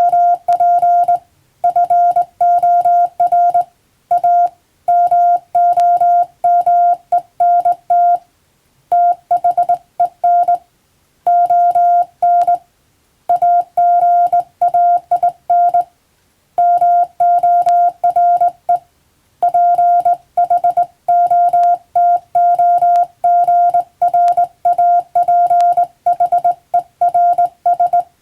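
Morse code (CW) tone, a single steady beep keyed rapidly into dots and dashes, sent in runs of characters broken by short pauses.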